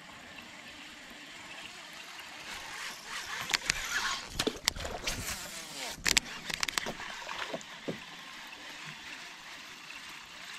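A fishing lure being reeled in across the water surface, splashing and gurgling, while a baitcasting reel is cranked. A few sharp clicks come in the middle of the retrieve.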